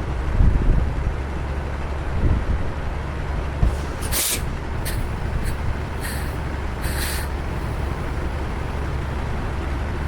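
Heavy truck diesel engine idling steadily, with several short hisses of compressed air from the air brakes or air lines about four to seven seconds in. A few low thumps come in the first few seconds.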